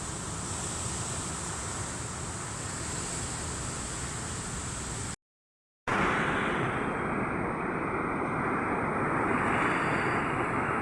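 Ocean waves breaking on rocks: a steady rushing surf noise. It cuts out to silence for a split second about five seconds in, then comes back louder and duller.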